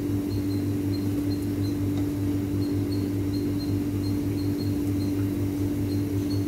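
A steady mechanical hum over the even hiss of binangkal (sesame dough balls) deep-frying in hot oil, with faint regular high ticks about three times a second.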